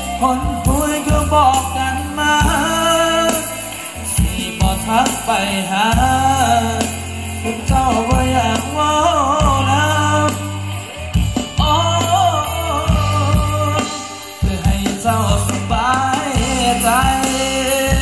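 Live band music with a singer's melody over bass and drums.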